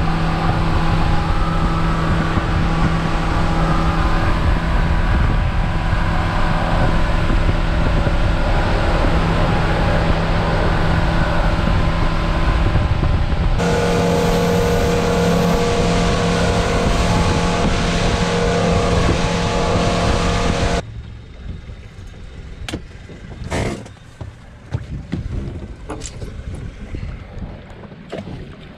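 A boat's outboard engine running steadily at speed with rushing wind and water, its pitch shifting about two-thirds of the way through. It cuts off abruptly about 21 seconds in, leaving quieter water and wind with a few sharp clicks and knocks.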